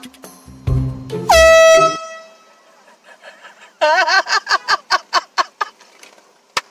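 A handheld air horn blasts once, loud and for under a second, its pitch dipping as it starts, over a low thumping music beat. A couple of seconds later comes a quick run of high, wavering cries, about five a second.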